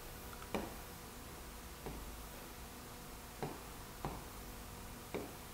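Faint, sparse taps of a stylus on an interactive touchscreen board as lines are drawn: about five light ticks, irregularly spaced, over a faint steady room hum.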